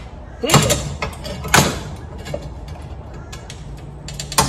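A few sharp metallic knocks and clanks as a long steel plate is shifted and set on a benchtop drill press table. The two loudest come about half a second and a second and a half in, with another cluster near the end.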